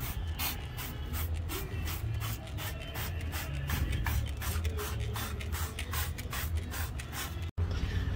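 Hand trigger spray bottle pumped rapidly, about four squirts a second, each a short hiss of cleaner sprayed onto a car's underbody.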